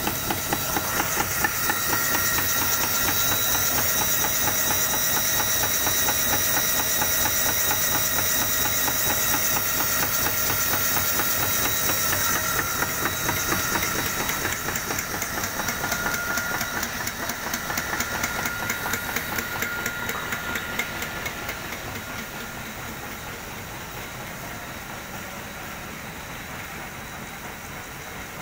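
Cable production line running: the roller machinery keeps up a fast, steady clatter with several steady high whining tones over it. The sound grows fainter in the last third.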